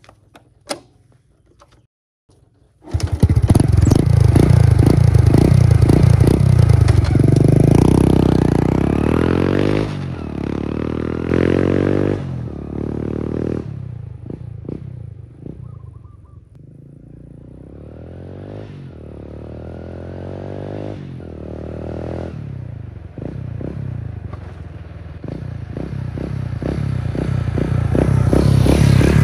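Daelim Dream-style 50cc step-through motorcycle engine starts about three seconds in and revs as the bike pulls away through the gears. It fades as the bike rides off, then grows louder again as it comes back.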